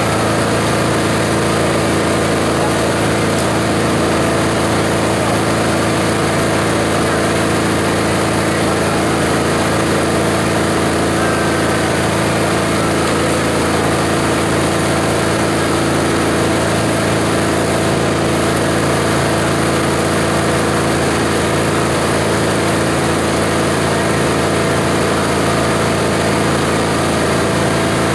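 Esteban 9-in-1 multi-purpose chopper/shredder running steadily while dry fibrous material is fed through it for shredding: an even mechanical hum with a steady rush of noise that doesn't let up.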